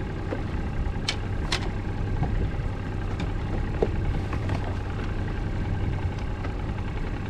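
Boat motor running steadily at trolling speed, a low even hum, with a couple of sharp clicks a little over a second in and a few fainter ticks later.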